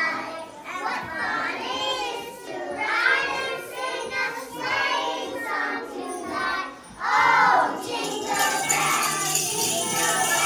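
A group of young children singing together, with jingle bells joining in about eight seconds in.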